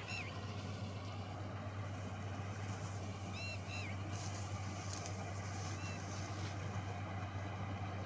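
Steady drone of a Preet 987 combine harvester's diesel engine working in the field at a distance: a low hum under a broad rush. A few short high chirps come through over it, about three and a half seconds in and again near six seconds.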